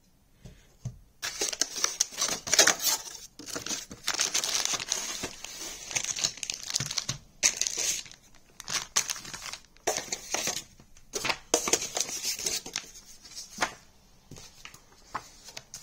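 Clear plastic zip-lock bags of cables crinkling and rustling in repeated bursts with short pauses as they are handled and taken out of the packaging, quieter near the end.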